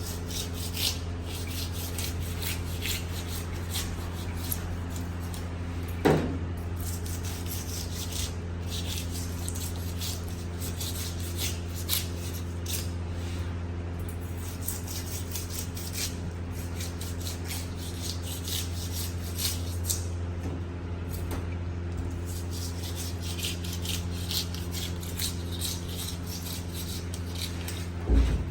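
Knife scraping and cutting a fish in many short, scratchy strokes over a steady low hum, with a sharp knock about six seconds in and another near the end.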